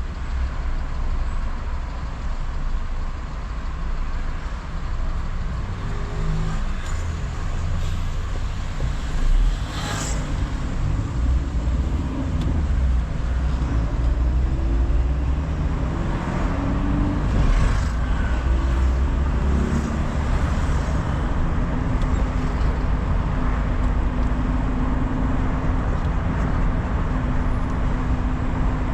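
Car cabin ambience while driving on city streets: steady engine hum and road rumble. A short sharp knock comes about ten seconds in, the engine's pitch shifts up and down over the middle stretch, and the hum then holds steady.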